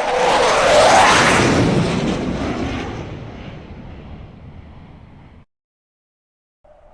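F-16 fighter jet flying past: its single jet engine's noise swells to a peak about a second in with a falling sweep in pitch, then fades away and cuts off suddenly. After about a second of silence, another pass starts building near the end.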